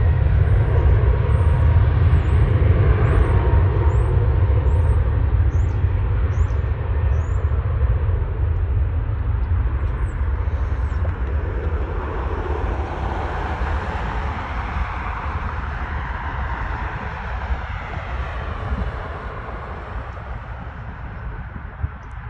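Jet engines of a Frontier Airbus A320-family airliner at takeoff thrust: a loud, deep rumble with a rushing hiss. It fades gradually as the aircraft departs.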